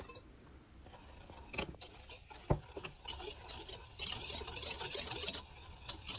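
Wire whisk stirring sugar and water in a stainless steel pot, its tines clicking and scraping against the metal. A few scattered clicks at first, then quicker, busier stirring from about four seconds in.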